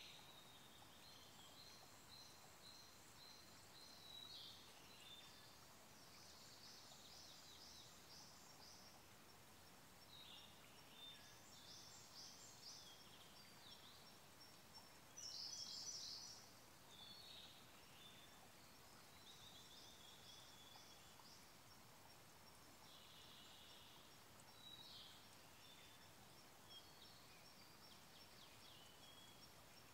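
Songbirds faintly singing short, high trilled phrases every few seconds, one of them louder about halfway through, over the faint steady rush of a small stream.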